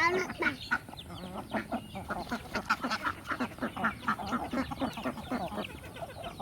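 A flock of domestic ducks quacking: many short calls overlapping without a break.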